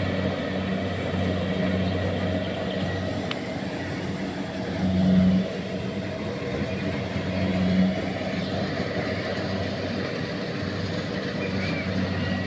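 Combine harvester engine running steadily, swelling louder briefly twice, about five and eight seconds in.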